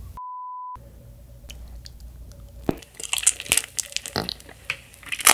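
A brief steady beep near the start, then close-up biting and chewing of a toasted marshmallow on a skewer: a quick run of crackly clicks and smacks from about three seconds in.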